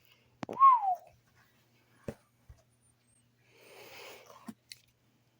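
A cat meows once, a short call that rises and then falls. It is followed by a few light clicks and a soft rustle of handling.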